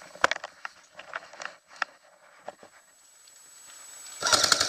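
Footsteps crunching over gravel and loose dirt, then about four seconds in an airsoft electric gun opens up on full auto, a loud, fast, even rattle of shots that is the loudest sound here.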